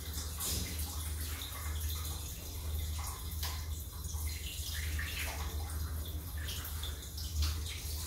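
Water from a hand-held shower head running over a Rottweiler puppy's head and splashing down onto plastic floor grating, over a steady low hum.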